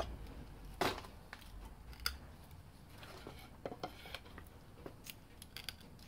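Lengths of wood being set and shifted under a Honda CB750 cast-aluminium cylinder block on a workbench, giving scattered light knocks and taps of wood against metal and bench. The loudest knock comes about a second in.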